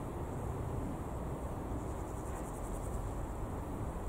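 Steady low rumble of a distant Lufthansa Airbus A340-600 on approach. About two seconds in, an insect chirps high above it in quick, even pulses.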